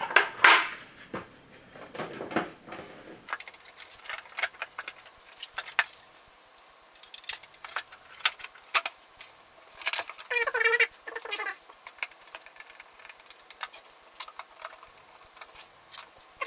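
Black plastic housing parts of a Henry Micro vacuum cleaner being handled and fitted together: a run of irregular clicks and knocks, with a short wavering squeak about ten seconds in.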